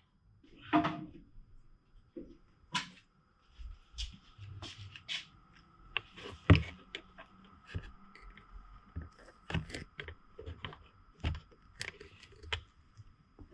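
Scattered clicks, knocks and rattles of a motorcycle front brake master cylinder being handled and worked on with pliers, the loudest knock about six and a half seconds in.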